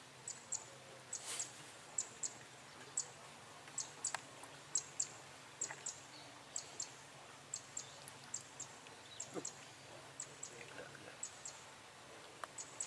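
Repeated high, short chirps, mostly in quick pairs, about one pair a second, from a small bird or insect, over faint quiet outdoor background.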